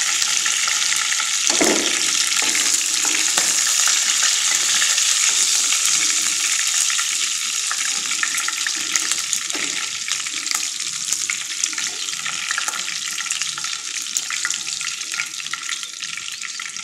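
Broiler chicken pieces frying in hot soybean oil in a karai. The steady sizzle slowly fades as the pieces are lifted out, with occasional scrapes and taps of the metal spatula against the pan.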